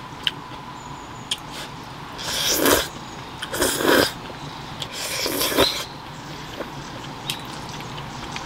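Cream spaghetti slurped from a fork, three noisy sucking slurps about two, three and a half and five seconds in, with a few light clicks of the fork against the metal bowl.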